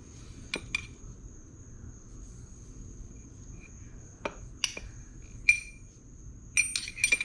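Metal parts of a lowrider hydraulic cylinder clinking and tapping against each other several times, each knock ringing briefly, with a cluster of quick clinks near the end. A faint steady high-pitched whine runs underneath.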